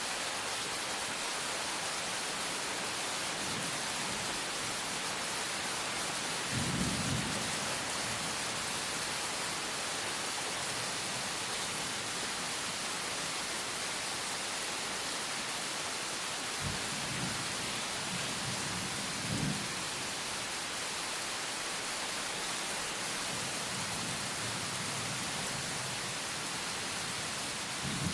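Steady rain falling, with short low rumbles of thunder: the loudest about a quarter of the way in and two lighter ones a little past halfway.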